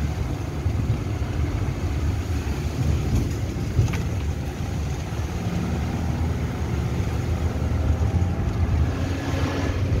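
Car driving on a dirt road, heard from inside the cabin: a steady low rumble of engine and tyres, with one brief click or knock about four seconds in.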